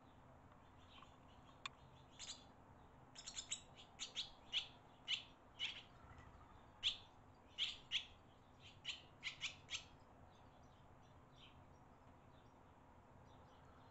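Barn swallows chirping at their mud nest during a parent's feeding visit: a quick run of short, high chirps from about two seconds in until about ten seconds in, over faint hiss. A single sharp click comes just before the chirping starts.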